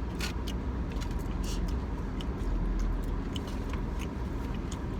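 Chewing and small mouth clicks from someone eating, over a steady low rumble inside a car.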